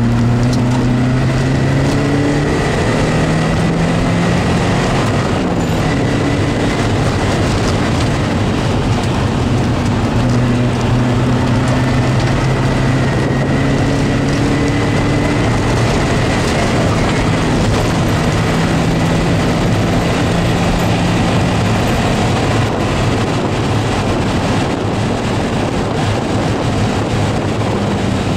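Porsche 924S's 2.5-litre four-cylinder engine heard from inside the cabin under hard driving, its note climbing and dropping back several times as the car accelerates and lifts between cones, over steady road and tyre noise. A thin high whine runs faintly in the background.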